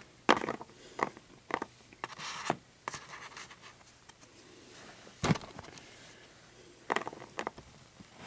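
Fingers handling small plastic toy figures and rubbing over the camera close to its microphone: a string of short scrapes, rubs and clicks, the loudest a knock about five seconds in.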